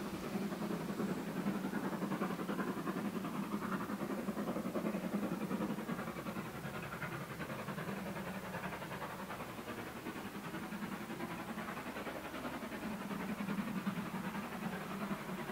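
A GWR Modified Hall two-cylinder 4-6-0 steam locomotive working a train in the distance, heard as a steady rumble of exhaust.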